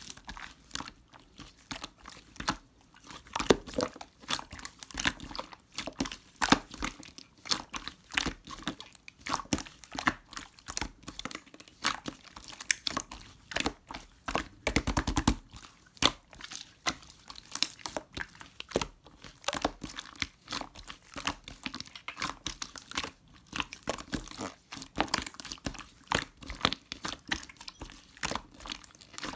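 Close-miked crunching and crinkling: a dense, irregular run of sharp crackles, thickest about halfway through.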